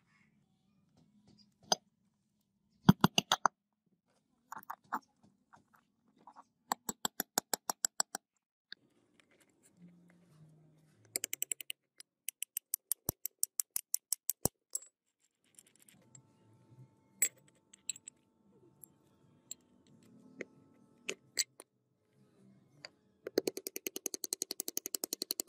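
Small hammer tapping on metal in several quick runs of light strikes, several a second, as parts are driven into an electric drill's aluminium gear housing; faint scraping and clinks of handled metal parts between the runs.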